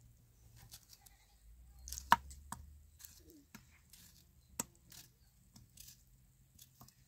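Tomato being sliced with a small knife held in the hand, with wedges dropping into an empty steel pan: sparse soft cuts and clicks, with two sharp clinks about two and four and a half seconds in.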